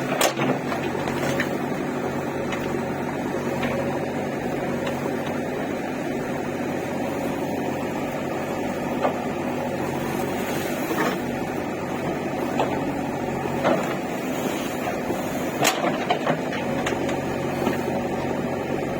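An engine running steadily with a low hum, with a few sharp knocks now and then.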